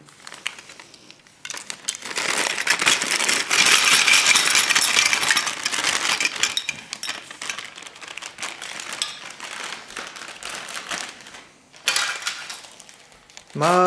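Small plastic marble-run track pieces being shaken out of a clear plastic bag, clattering and clinking against each other with the bag crinkling. It starts about a second and a half in, is busiest over the next few seconds, tails off, and ends with a short burst near the end.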